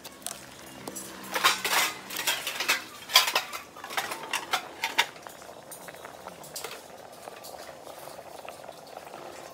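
Metal ladle clinking and scraping against a pot of water at the boil, a burst of clatter in the first half, then the water bubbling steadily.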